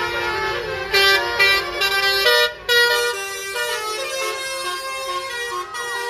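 Multi-tone musical vehicle horn of the Indonesian 'telolet' kind, playing a melody of stepped notes. Louder, brighter blasts sound about a second in and several more follow up to about three seconds in.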